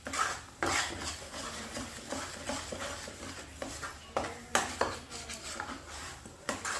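A utensil stirring and scraping a thick, sticky jaggery, ginger and turmeric paste around a kadhai, with several sharp knocks of metal on the pan.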